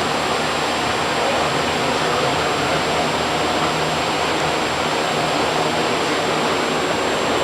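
Steady, loud rushing noise with no clear events, carrying a faint thin high whine throughout.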